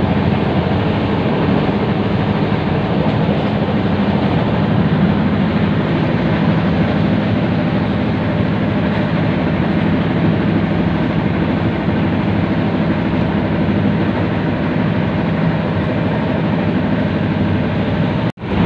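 Steady running noise of a moving express train heard from inside a sleeper coach, strongest as a low hum. The sound cuts out briefly near the end.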